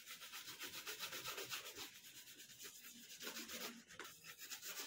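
Shoe brush scrubbing a black combat boot to polish it, in rapid, regular back-and-forth strokes.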